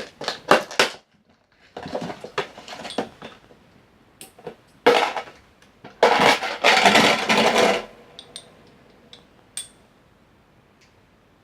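Hard salvaged parts clinking and clattering as they are handled, in several bursts with the longest near the middle, then a few light ticks. A strong magnet is being tried against a removed glass display panel.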